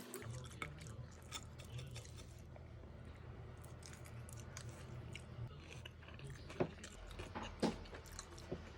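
A person chewing and biting food close to the microphone: scattered small clicks and two sharper clicks in the second half, over a steady low hum.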